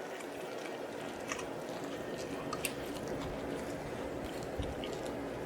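Faint eating sounds: a few short, wet mouth clicks over a steady low hiss.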